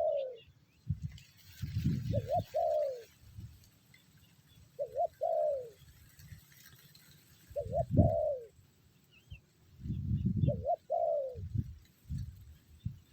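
Spotted dove cooing its territorial call, the kind a decoy male in a trap uses to provoke a wild male. The same phrase repeats about every two and a half seconds: two short coos, then a longer falling note. Low thumps come in between the calls, the strongest about eight seconds in.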